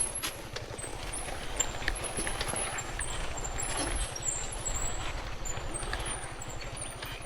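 Dirt bike engine idling with a low, even, rapid putter, with high thin chirps coming and going above it.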